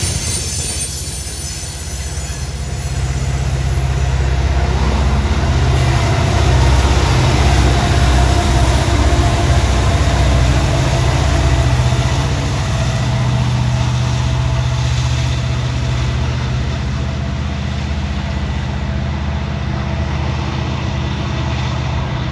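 Loaded coal hopper cars rolling past with some wheel squeal at first, then a Norfolk Southern diesel locomotive in the train goes by close, its low engine drone swelling as it passes and easing as the train moves away.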